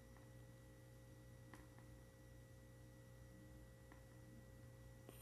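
Near silence: room tone with a faint steady electrical hum and a thin high tone, broken by a few faint clicks.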